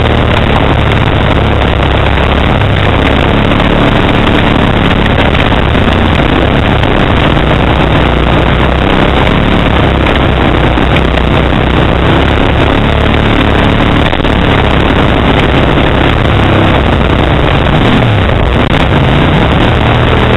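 Kawasaki Brute Force 750 ATV's V-twin engine with a Muzzy aftermarket exhaust running steadily under load, heard close up from the machine's front rack, as it rides a rough forest trail.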